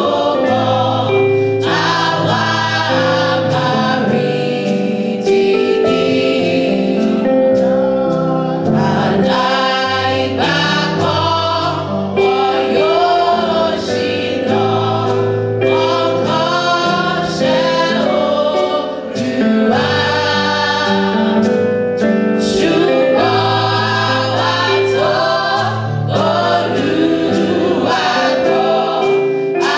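Gospel choir of young women singing together into microphones, over steady held instrumental notes in the bass and middle that change in steps.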